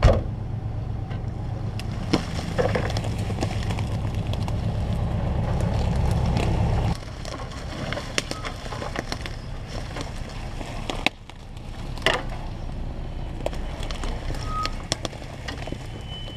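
Cars crawling down a brushy dirt trail: a low engine hum with twigs and brush snapping and crackling under the tyres and against the bodywork. The hum drops off about seven seconds in, and there are sharp cracks about two seconds and twelve seconds in.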